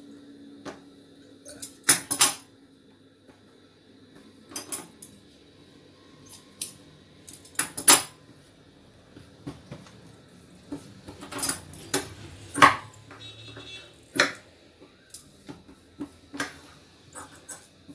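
Sharp metallic clicks and clinks from steel tailor's scissors cutting cloth and being set down on a worktable, coming irregularly, a dozen or so in all, with the loudest about two seconds in, near the middle and about twelve seconds in.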